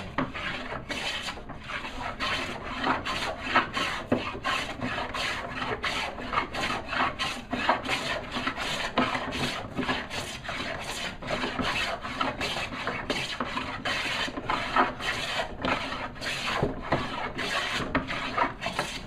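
Hand plane taking thin shavings off a walnut board in quick repeated strokes, about two a second: light smoothing passes with a sharp iron as the surface comes smooth.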